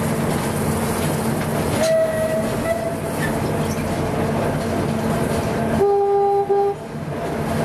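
Small narrow-gauge train running, heard from the locomotive's cab: a steady low engine hum over rumbling wheel and rail noise. About two seconds in a faint high tone sounds for about a second. Near six seconds a train horn gives a short, louder blast, under a second long with a brief break in the middle.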